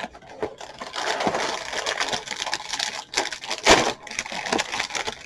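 A cereal box and its plastic liner bag being opened: dense crinkling and crackling of plastic and cardboard, with a sharp louder crack nearly four seconds in as the bag tears open.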